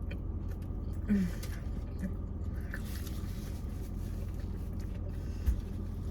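Chewing and small mouth clicks as a fast-food burger is eaten close to the microphone, over a steady low hum inside a parked car. A short hum of the voice comes about a second in and a single thump near the end.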